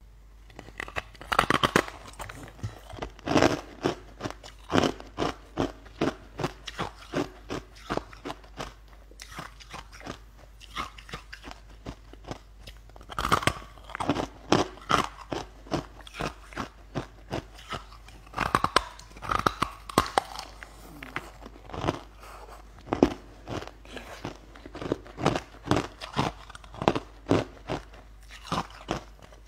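A person biting into and chewing a block of frozen ice, with loud, sharp crunches coming again and again at an uneven pace, broken by short pauses.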